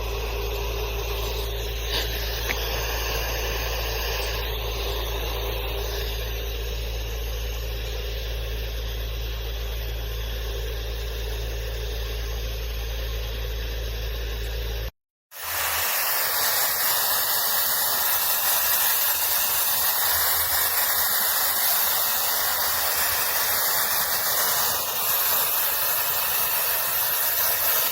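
Handheld forced-air pet hair dryer running: a steady motor hum with a low drone, then, after a brief cut about halfway through, a louder, even rush of blowing air.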